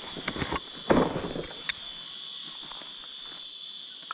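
Steady high-pitched drone of insects, with a burst of rustling and light knocks from a backpack and fishing gear being handled in the first couple of seconds, loudest about a second in.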